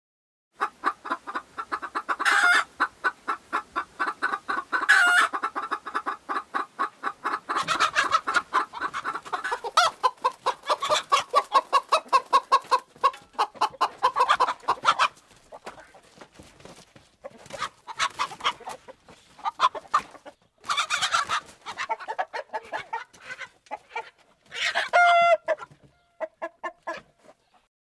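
Domestic hens clucking in quick runs of rapid clucks, broken by a few louder, higher squawks.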